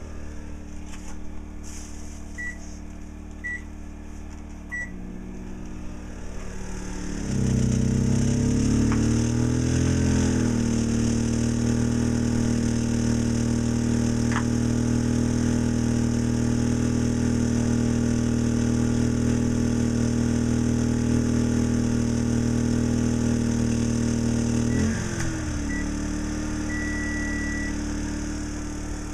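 Champion 2000-watt inverter generator running with economy mode off, under a microwave oven's load. Three keypad beeps sound, then about seven seconds in the microwave starts and the engine dips and climbs to a louder, steady run for about 17 seconds; near the end the load drops off, the engine note shifts back and the microwave beeps, the last beep longer.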